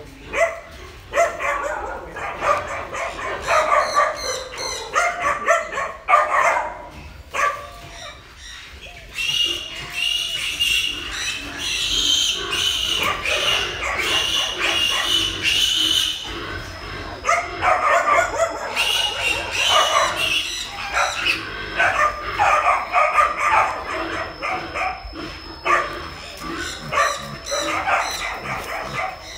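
Wild boar piglets squealing and grunting as they are handled and crammed into a wire-mesh cage, with one long, high, drawn-out squeal from about 9 to 16 seconds in. A thin, steady high tone comes in halfway through and carries on.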